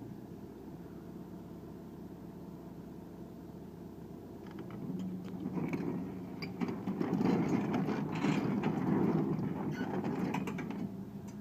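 Hydraulic excavator's diesel engine running. The sound gets louder about five seconds in and louder still from about seven seconds until shortly before the end, as if the machine is working under load, with scattered clicks and clanks.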